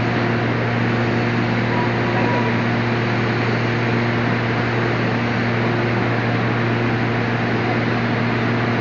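A stevia dryer running steadily: an even rushing noise with a constant low hum underneath.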